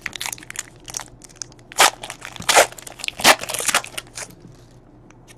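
Trading cards being handled and shuffled by hand: a rapid run of crisp snaps and rustles, loudest about two to three and a half seconds in, dying away after about four seconds.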